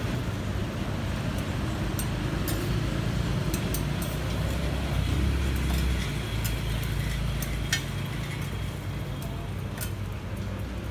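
Metal spatula clinking and scraping against a flat steel roti griddle as the pancake is folded and cut, about a dozen sharp clinks spread through, the loudest a little before the end. Underneath runs a steady low hum like an idling engine.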